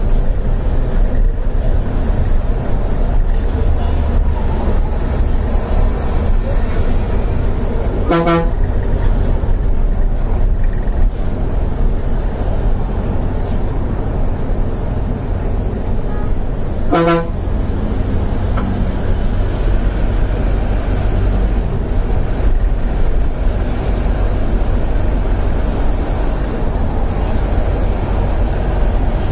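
Inside a moving city bus: steady engine and road rumble, with two short horn toots, about 8 and 17 seconds in.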